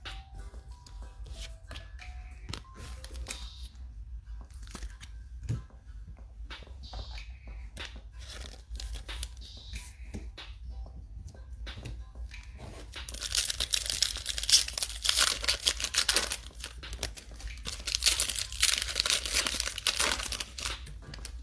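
Trading card packaging being torn open and crinkled. Scattered small clicks and handling noises come first, then a long, loud stretch of tearing and crinkling in the last third.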